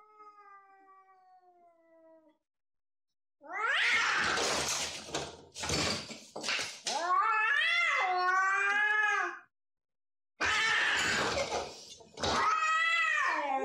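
A cat caterwauling. It starts with a faint, falling moan, then gives two loud bouts about six seconds apart, each a harsh screech that runs into long, wavering yowls.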